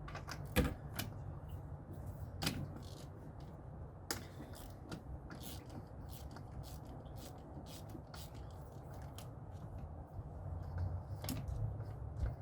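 Irregular light clicks and taps of hand tools and parts being handled during engine teardown, over a steady low hum.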